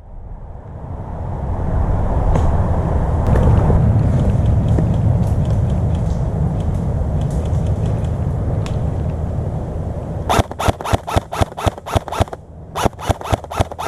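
A rough rustling rumble, like movement and wind on the microphone, builds and holds for most of the clip. Near the end comes a fast, even run of sharp clicks, about six a second, lasting about two seconds; it pauses briefly, then starts again.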